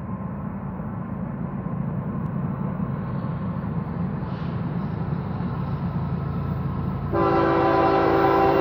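Approaching BNSF freight train's diesel locomotives with a low, steady rumble that grows slightly louder. About seven seconds in, the lead locomotive's air horn sounds a loud, steady chord of several notes.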